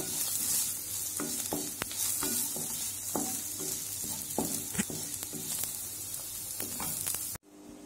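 Paneer cubes sizzling in a nonstick frying pan while a spatula stirs and tosses them, with a steady hiss of frying and irregular taps and scrapes of the spatula against the pan. The sound cuts off abruptly near the end.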